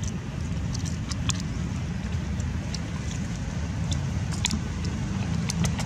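Steady low outdoor rumble with scattered faint, sharp high clicks and ticks.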